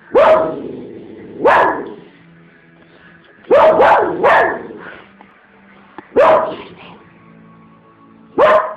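Lhasa Apso barking: seven short, sharp barks at uneven intervals, with a quick run of three about three and a half seconds in. These are alarm barks at a dog the Lhasa Apso takes for an intruder, which is its own picture.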